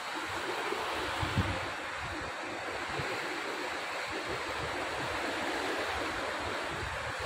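Sea surf washing against the rocks at the foot of a cliff, a steady rushing noise, with low rumbling from wind buffeting the microphone.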